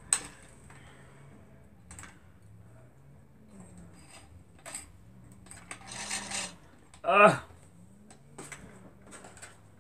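Scattered light clicks and taps of plastic parts as a small, cheap plastic sewing machine is handled and picked at, with a brief little clatter about six seconds in.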